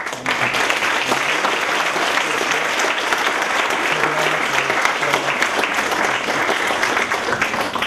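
A large lecture-hall audience applauding: dense, steady clapping that starts suddenly and keeps an even level.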